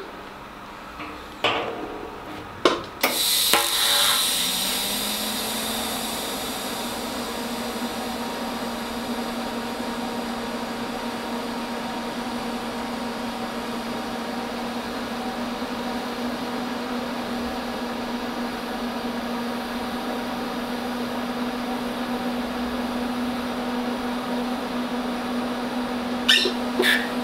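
TIG welding arc on stainless steel: a steady buzzing hiss with a constant low hum. It starts about three seconds in after a few clicks. The torch is fusion-welding a ferrule's protruding lip into the fitting, with no filler rod.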